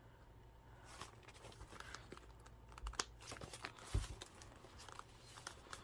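A wallet and paper inserts being handled: soft rustling and crinkling with scattered small clicks and taps, and a couple of soft thumps about three and four seconds in.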